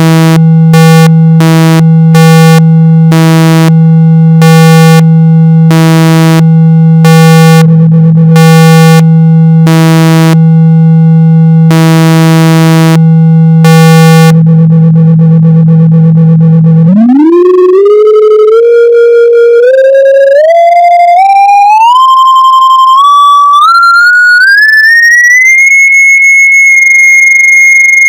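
Synthesized speaker-cleaning tone meant to shake water and dust out of a speaker: a loud, steady low hum near 162 Hz with buzzy pulses about once a second. About seventeen seconds in the hum stops and a single tone climbs in steps from low to high, then holds as a steady high whistle near 2 kHz.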